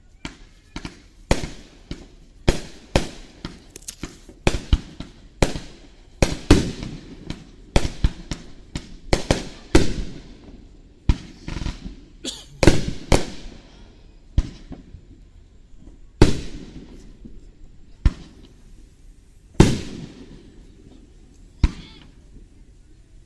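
Aerial fireworks shells bursting in a rapid, irregular series of sharp bangs, each followed by a short echoing tail. The bangs come thick and fast for the first half and thin out to a few widely spaced booms toward the end.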